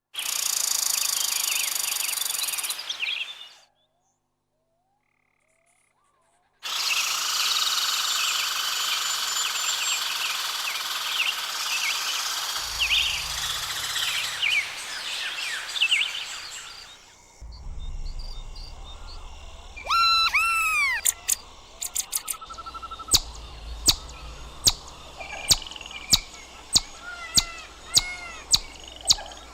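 Chipmunk calls: thick, high-pitched chirping, broken by a silent gap of about three seconds. From about two-thirds of the way through comes a steady series of sharp 'chip' calls, about one and a half a second.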